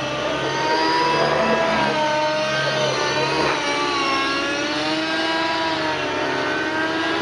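The two-stroke glow engine (O.S. MAX-55HZ) of a JR Vibe 50 NEX RC helicopter running at high revs during 3D aerobatics. Its pitch wavers up and down as the load changes, dipping about three to four seconds in.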